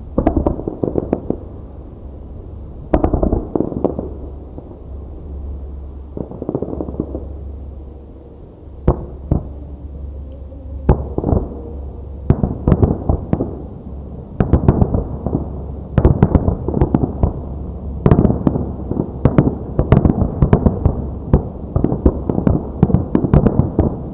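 Fireworks display with aerial shells bursting. The bangs come in a few scattered clusters at first, then in dense, rapid barrages of crackling bursts from about halfway through.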